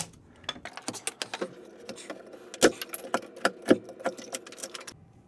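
Wood shims behind the tub flange being cut off by hand: a run of sharp, irregular clicks and cracks, two louder snaps near the middle.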